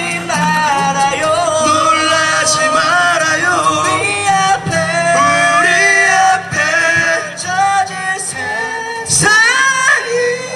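Three men singing a pop song in harmony into microphones, amplified through a PA.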